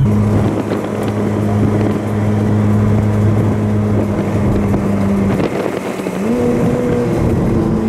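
Ferrari F430's 4.3-litre V8 with a Capristo aftermarket exhaust, heard from inside the cabin while driving: a loud, steady engine drone that dips briefly about five and a half seconds in, then rises to a higher pitch and holds.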